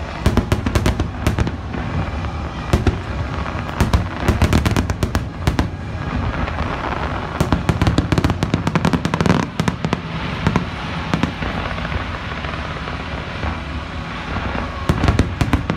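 Aerial fireworks display: deep booms of shell bursts over a continuous rumble, with clusters of rapid crackling shells. The crackling comes in several spells, heaviest near the start, in the middle and again near the end.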